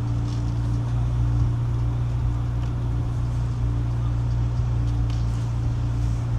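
C8 Corvette Z06's 5.5-litre flat-plane-crank V8 running at low speed, a steady low drone that holds one pitch.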